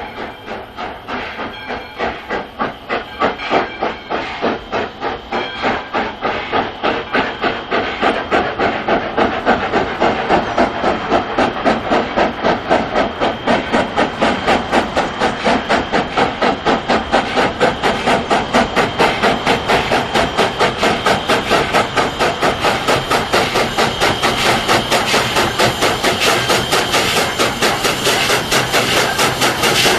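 Steam locomotive exhaust chuffing in an even beat that quickens and grows louder, as the engine works harder.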